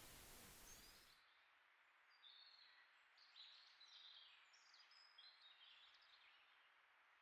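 Faint outdoor background hiss that cuts off about a second in, leaving quiet birdsong: a string of short, high chirps that fades toward the end.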